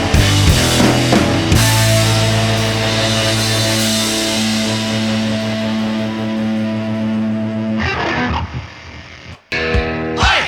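Rock music with distorted electric guitar: drums and a heavy chord, which is left to ring out and fades about eight seconds in, then the guitar starts strumming again near the end.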